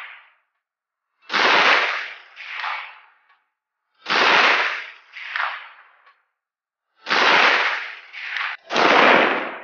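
Four single rifle shots from a 20-inch AR-15 in 5.56 mm, fired slowly about three seconds apart, the last two closer together. Each sharp crack is followed about a second later by a fainter second report.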